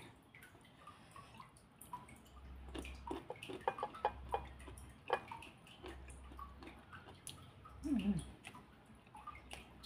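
Close, wet eating sounds: chewing and lip-smacking clicks as someone eats petai beans dipped in chilli sambal, with rice. Near the end comes a short hummed "mm" that falls in pitch.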